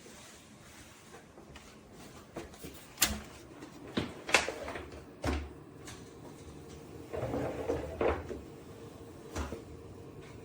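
Handling noises: half a dozen sharp clicks and knocks of hard parts, with a scraping rustle about seven to eight seconds in.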